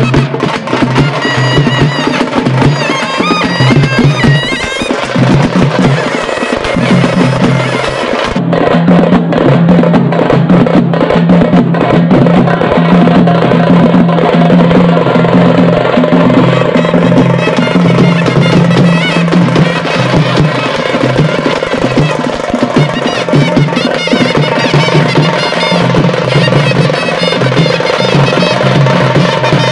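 Street festival band: several stick-beaten hand-held drums playing a fast, dense rhythm, with a wind instrument carrying a wavering melody over a steady low held note.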